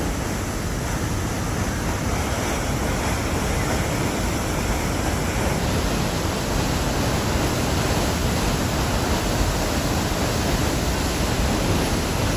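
Loud, steady rush of a large waterfall's pouring water, an even roar with no breaks.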